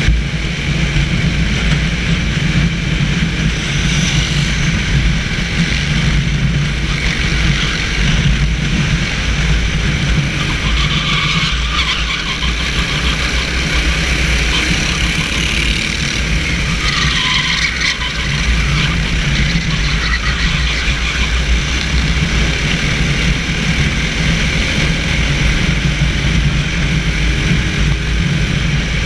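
Racing kart's engine running at speed, heard from onboard the kart, with a steady low rumble throughout.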